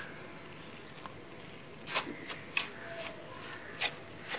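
Hand stirring dry flour in a stainless steel bowl: soft dry rustling with several short sharp ticks as the fingers scrape the steel.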